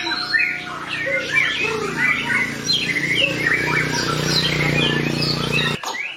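White-rumped shama (murai batu) singing a fast, unbroken run of varied whistles, sliding notes and sharp chip-like notes. Beneath it a low steady hum cuts off abruptly near the end.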